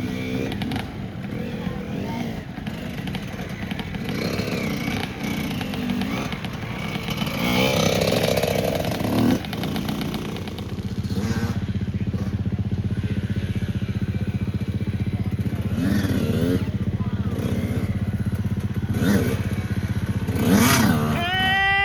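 Mini motocross bike engines running around the track, settling into a steady drone from about halfway through, with voices calling out over it.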